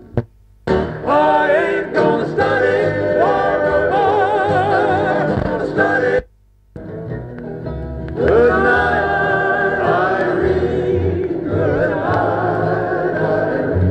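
Music with a singing voice, played from a vinyl record on a cheap record player with a ceramic cartridge and heard through an RCA LC1B loudspeaker. The music cuts out for about half a second a little past the middle as the tonearm is moved by hand, then the singing carries on.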